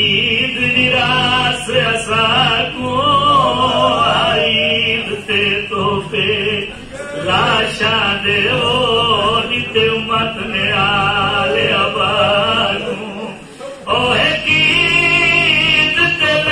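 A man singing masaibi dohray, devotional lament couplets about Imam Ali, in long wavering melodic lines through a microphone. The voice is unaccompanied and breaks off briefly about two-thirds of the way through before going on.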